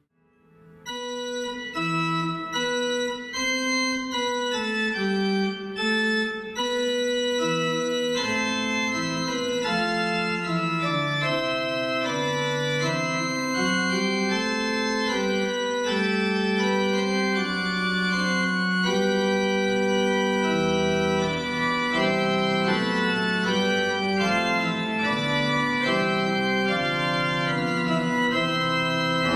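Organ played solo: held chords that move from one to the next, starting just after a brief silent break at the very beginning.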